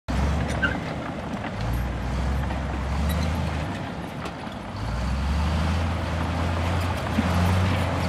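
Komatsu crawler bulldozer's diesel engine running deep and steady as it pushes rocky backfill, its note shifting a few times, with scattered light clanks.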